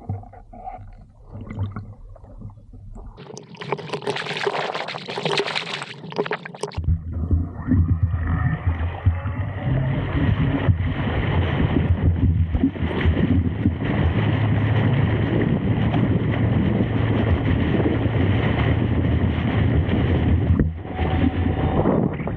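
Water splashing for a few seconds as the rider gets onto the electric hydrofoil board. From about seven seconds in, a loud steady rush of water and wind on the microphone as the eFoil board gets under way and rides across the water.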